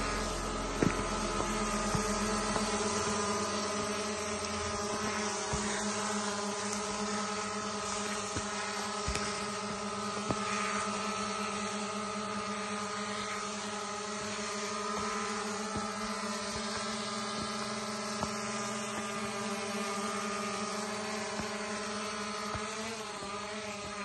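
Small DJI Mini quadcopter's propellers whining steadily as it lifts off and hovers close by, a buzz made of several steady tones; the pitch shifts briefly near the end.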